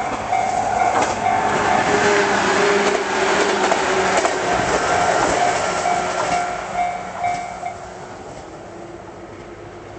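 JR West 113 series 3800-subseries electric train passing over a level crossing, its wheels on the rails giving a loud rumble with rail-joint clicks that fades away near the end. The crossing's warning bell dings about twice a second over it and stops shortly before the train noise dies down.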